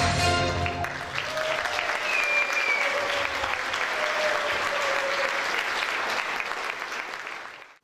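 Audience applauding as a piece of music ends about a second in, with a few voices calling out over the clapping; the applause fades out near the end.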